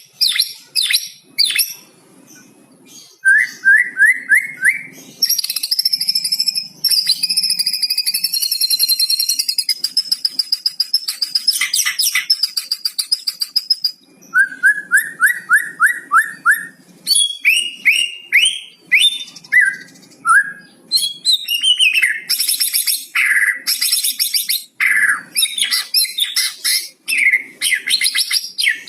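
White-rumped shama singing a long, varied song of loud whistles and chattering phrases, trained with mimicked cucak cungkok phrases. It includes a shrill warbling trill, and twice a quick run of about six rising notes: a few seconds in and again about halfway.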